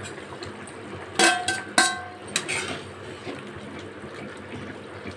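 Steel utensils clink sharply against a steel kadai about four times between one and two and a half seconds in, ringing briefly, as fish pieces go into the curry. Behind them the fish curry gravy boils with a steady bubbling hiss.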